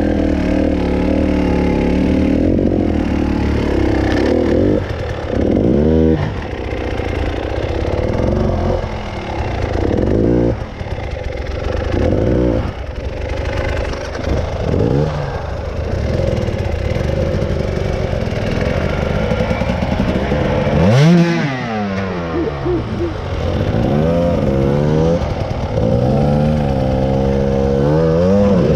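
Off-road motorcycle engine revving up and down repeatedly, with a sharp jump in revs about two-thirds of the way through.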